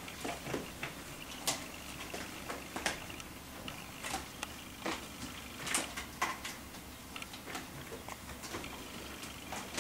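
Irregular light knocks, taps and scratching of Ragdoll kittens tussling and clambering on a sisal-post cat tree, a few sharper bumps a second at the busiest moments.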